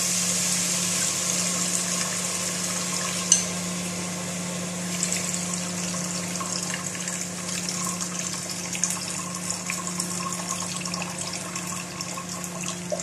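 Water mixed with fermented fish paste (bagoong isda) being poured into a pot of hot sautéed garlic, onion and tomato, hissing and sizzling, the hiss fading gradually as the liquid goes in. A single sharp click about three seconds in, with a steady low hum underneath.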